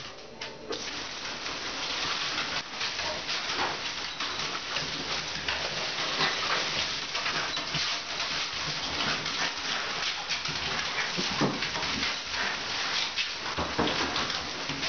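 Handheld shower head spraying a steady hiss of water into a bathtub and over a puppy, the spray coming on about a second in.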